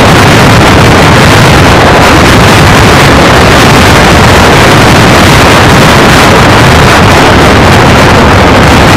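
Motorcycle riding at speed, heard as loud, steady wind buffeting on a phone microphone over engine and road noise.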